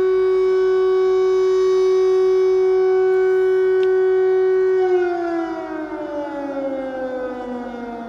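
Civil defence air raid siren sounding over the city, holding one steady tone and then, about five seconds in, sliding steadily down in pitch as it winds down.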